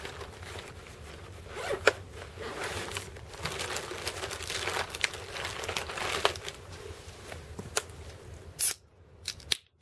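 Thin plastic shopping bag rustling and crinkling as a hand rummages through it, with a sharp crack about two seconds in. A few short sharp clicks come near the end.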